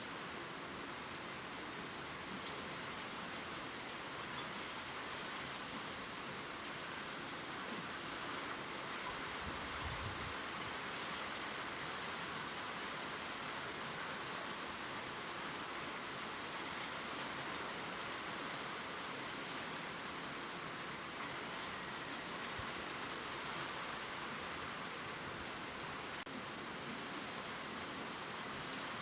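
Steady gentle rain pattering on leaves, a soft even hiss with scattered individual drop ticks. A brief low thud sounds about ten seconds in.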